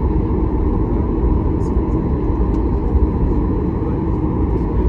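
Steady low rumble of a Boeing 737 MAX 8 heard from inside the passenger cabin: engine and airflow noise with no change in level.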